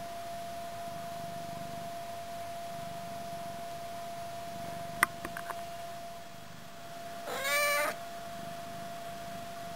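A domestic cat gives one short meow, rising in pitch at its start, about seven seconds in; it is the loudest sound. A sharp click with a few fainter ones comes a couple of seconds earlier, over a steady faint high hum.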